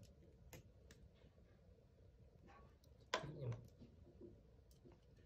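Near silence with a few faint clicks of the soldering handpiece being handled, and one short vocal sound from the person about three seconds in.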